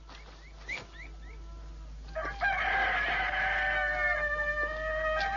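A rooster crowing: a long, loud call that starts about two seconds in, after a stretch of faint, quick, repeated chirps.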